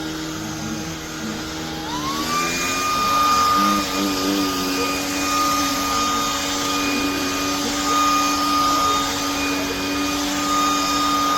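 Shark cordless stick vacuum running. About two seconds in, its motor speeds up with a rising whine, then holds a higher, louder steady whine with a rush of air.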